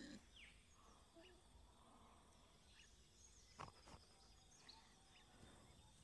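Near silence: faint outdoor ambience with a few faint bird chirps and a single faint click about three and a half seconds in.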